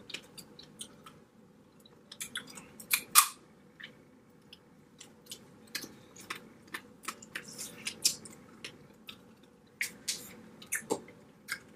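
Eating a blue crab and shrimp seafood boil: chewing with many short, sharp clicks and crunches, the loudest about three seconds in.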